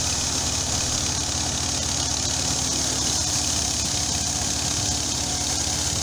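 Tractor-driven wheat thresher running steadily: the tractor's diesel engine turns the thresher through its drive shaft while the last of the wheat is fed in, a constant engine hum under an even hiss.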